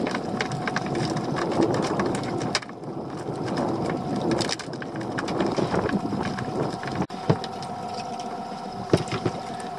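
A small fishing boat's engine running steadily at idle, with irregular knocks and clatter as a freshly caught black bream is handled over a plastic bucket.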